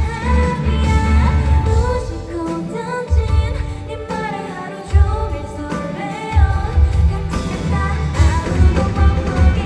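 Live pop-rock band playing with female lead vocals over drums, bass and keyboard, at sound-check volume; the drums and bass drop out for a few moments in the middle, leaving the singing, then come back in.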